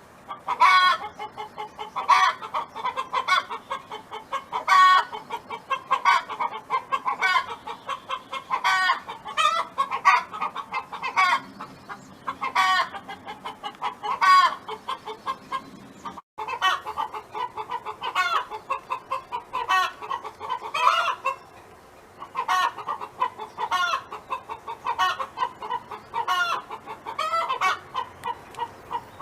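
Domestic hen's cackling song: a steady run of short clucks, broken every second or two by a louder, drawn-out squawk that bends in pitch. About halfway through there is a brief break.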